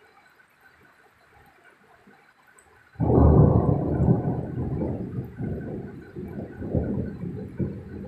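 Thunder: a sudden clap about three seconds in that rolls on as a deep rumble, swelling and slowly fading, over faint steady rain.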